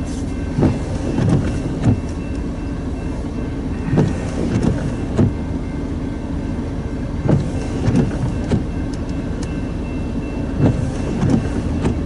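Freight train cars rolling past over steady rail rumble, their wheels clacking over a rail joint in regular groups of about three, one group every three seconds or so.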